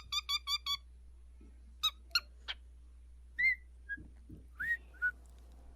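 Parrot chirping and whistling: a quick run of short, high chirps at the start, then scattered single chirps and a few short rising whistles.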